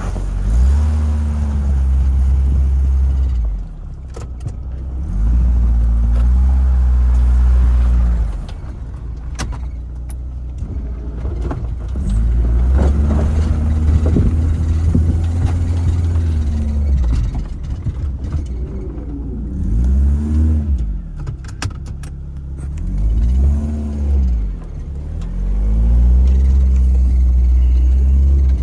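Chevy Tracker's engine revving up and easing off again and again as it plows snow, pushing snow back in loud surges of a few seconds each with quieter lulls between.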